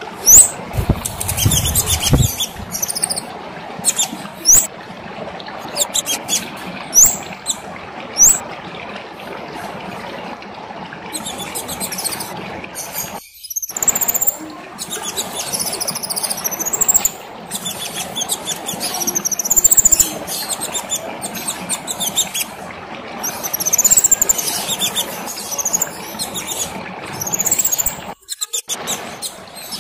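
Kemade songbird singing: sharp, high, upward-sliding chirps every second or two, then from about eleven seconds a dense run of high twittering song, over a steady background hiss.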